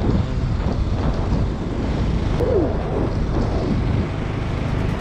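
Wind buffeting the microphone: a steady, dense low rumble with hiss above it.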